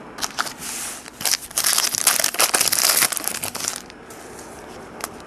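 Wrapper of a 2010 Panini Classics football card pack crinkling and tearing as it is ripped open. The loud crackling starts about a second in, lasts about two and a half seconds, and then gives way to quiet handling of the cards.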